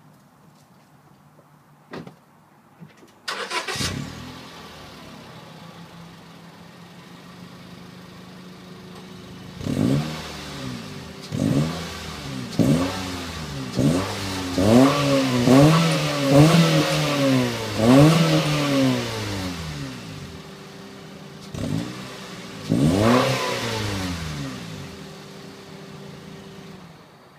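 Honda Civic SOHC VTEC engine through a MagnaFlow aftermarket exhaust, starting up about three seconds in and settling to idle. It is then blipped in a run of about eight or nine quick free revs, each rising and falling in pitch, returns to idle, gets one more rev, and is switched off near the end.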